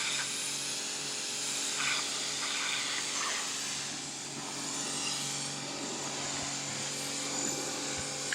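A power tool running steadily with an even motor hum and a hissing, rubbing noise, with a few brief scrapes about two to three seconds in.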